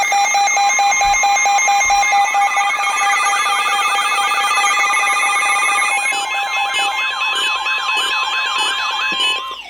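Emergency alert tones for a severe thunderstorm warning broadcast: several steady alarm tones layered with rapid warbling sweeps. The pattern changes about six seconds in to a steady tone near 1 kHz under the warble, and the sound drops out just before the end.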